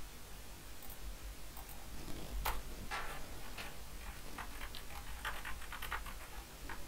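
A series of irregular light clicks and taps, with one louder knock about two and a half seconds in.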